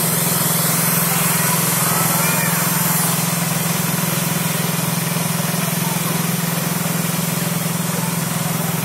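Kiddie airplane carousel ride running: a steady low machine hum with a constant hiss over it.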